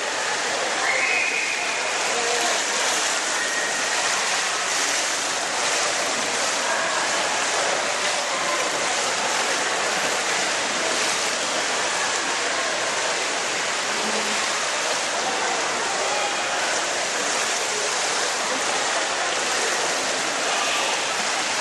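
Steady rushing water noise of an indoor swimming pool, even and unbroken, with a few faint higher tones over it.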